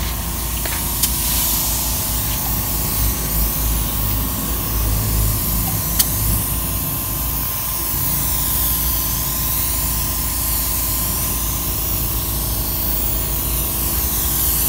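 Compressed-air paint spray gun hissing steadily as it spatters white acrylic paint in speckles, its air turned down so the paint comes out in droplets rather than a fine mist. Two sharp clicks come through, about a second in and about six seconds in.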